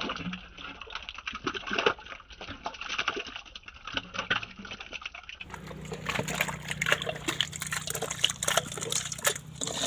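Wet mud and water squelching, sloshing and splattering in irregular crackles as hands dig and grab among wriggling fish in a muddy pit. About halfway through, a steady low hum joins in.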